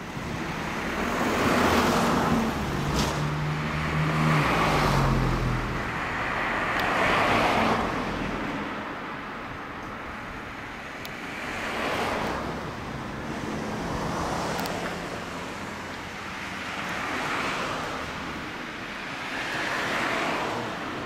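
Road traffic passing one vehicle after another, each swelling and fading as it goes by, about seven in turn.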